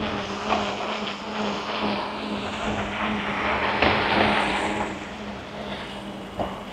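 A motor vehicle passing on a city street, loudest about four seconds in and then fading, over a steady low hum.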